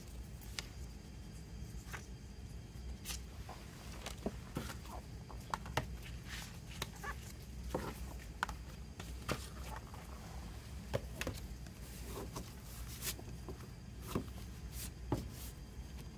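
Scattered light taps, clicks and rustles of hands handling a disc case and a paperback booklet on a table, growing busier after the first few seconds, over a steady low hum.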